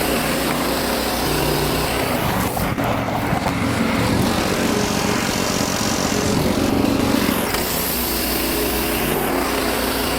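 Wood-Mizer LX55 portable band sawmill running steadily, its engine under load as the band blade saws through white pine.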